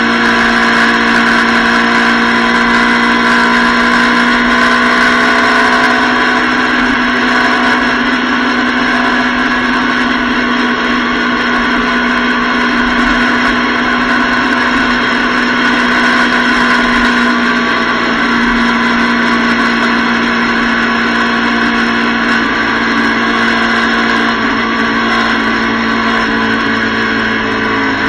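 Motorcycle engine running steadily at highway cruising speed, holding a nearly constant pitch, under a continuous rush of wind and road noise.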